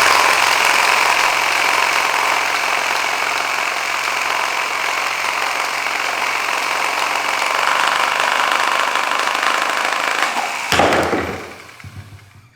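Corded reciprocating saw (Sawzall) running a home-made spray-paint-can shaker, a steady, loud mechanical shaking that speeds up a little toward the end. Near the end a sharp knock, the can popping out of the shaker at speed, and the saw winds down.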